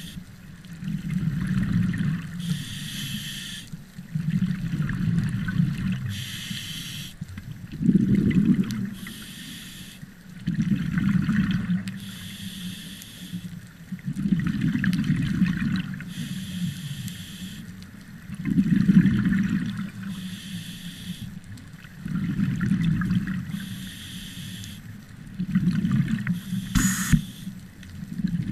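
A scuba diver breathing through a regulator underwater: a hiss on each inhale alternating with a low rumble of exhaled bubbles, about one breath every three and a half seconds. A single sharp click sounds near the end.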